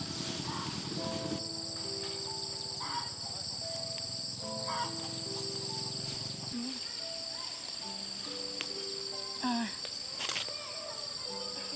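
Steady, high-pitched drone of insects over soft background music of slow, held notes. A low rustling noise underneath stops about six and a half seconds in, and there are a few short clicks.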